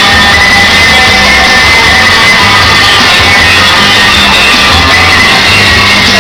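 Loud music with a steady bass line, with a crowd shouting and yelling over it.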